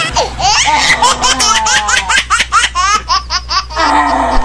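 Rapid high-pitched laughter, quick ha-ha syllables about four a second, breaking off briefly near the end and starting again.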